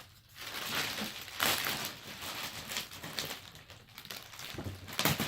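Packaging being handled and pulled apart as toy-car parts are unpacked, rustling in irregular bursts, loudest about a second and a half in and again near the end.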